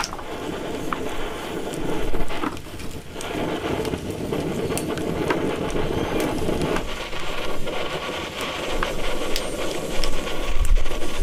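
Fresh green beans snapped by hand, a few sharp snaps, over a loud, steady rushing noise that stops about seven seconds in and comes back near the end.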